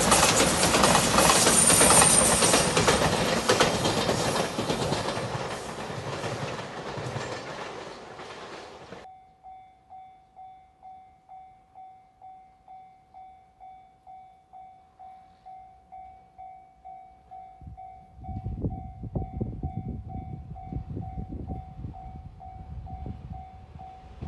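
Five-car Shiokaze limited express passing over a level crossing at speed: loud wheel-and-rail noise with clickety-clack that cuts off suddenly about nine seconds in. Then a level crossing alarm bell rings steadily, about one and a half strikes a second, and from about two-thirds of the way through the rumble of an approaching train rises under it.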